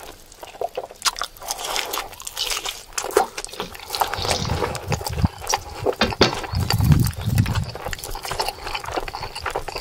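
Liquid poured from a small steel pot splashing onto rice on a banana leaf, then wet squelching and clicking as fingers mix the rice. A low, murmur-like sound stands out in the middle, loudest about seven seconds in.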